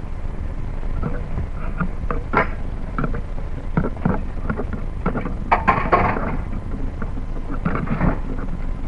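Handling noise from a hand-held video camera being carried: irregular rubbing, clicks and knocks on the body and microphone over a steady low rumble, loudest about five to six seconds in.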